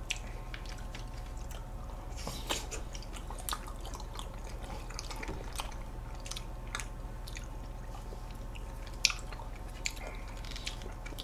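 Close-miked sounds of eating ice cream with plastic spoons from small cups: soft wet mouth sounds and scattered small clicks of spoons scraping and tapping, with two sharper clicks near the end. A faint steady hum runs underneath.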